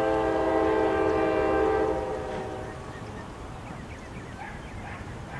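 Approaching diesel freight locomotive's air horn sounding one long, steady chord that fades out about two to three seconds in. The train's low rumble continues underneath.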